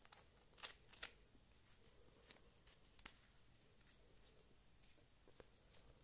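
Quiet handling of a flashlight as its tail cap is fitted back on: two sharp clicks about half a second and a second in, then faint light ticks.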